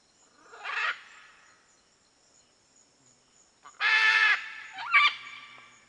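Red-and-green macaw calling: three squawks. There is a short one about half a second in, a louder, longer one near four seconds, and a shorter one with a rising pitch about a second after that.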